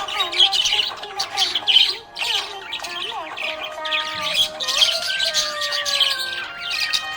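Budgerigars chattering with fast, busy chirps and squawks, several birds calling over one another.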